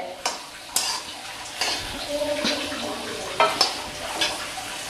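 Slotted spatula stir-frying diced onion and capsicum in hot oil in a kadai: a steady sizzle, with irregular scrapes and taps of the spatula against the pan.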